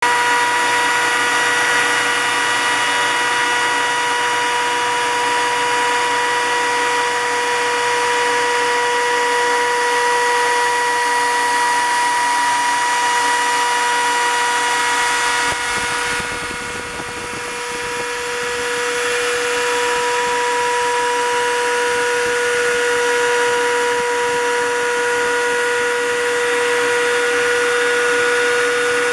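CNC router spindle running with a steady high whine while its bit cuts through 3/4-inch foam PVC, with a dense cutting hiss throughout. A little past halfway the cutting noise drops for a couple of seconds, then builds back up.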